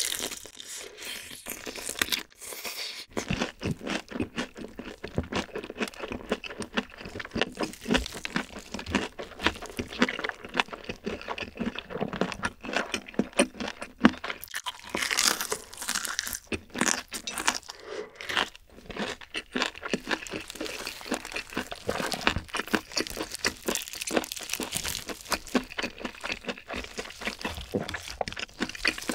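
Close-up crunching and chewing of crispy battered fried chicken, with the crust crackling over and over as it is bitten and chewed.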